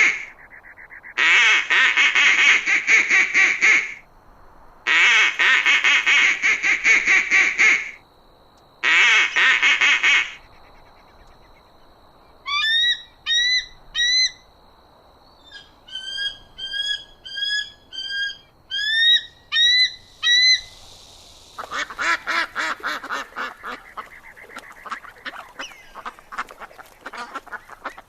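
Waterfowl calling: three loud bouts of rapid, harsh honking calls, then a stretch of short, clear rising chirps, then a chorus of rapid calls again from about three quarters of the way in.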